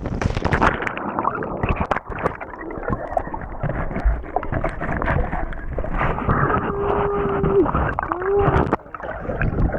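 Muffled churning, gurgling water from a waterfall, heard through a GoPro in or under the water, with scattered knocks. About six and a half seconds in a muffled moan holds for about a second, and a shorter one follows.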